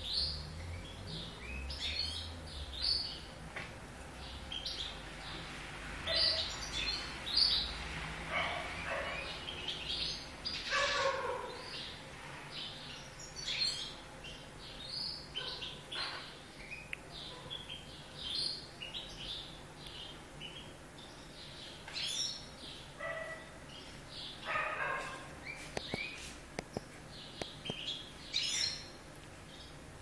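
Young canaries chirping in a cage: many short, high chirps and calls at an irregular pace, with a few longer, louder calls among them.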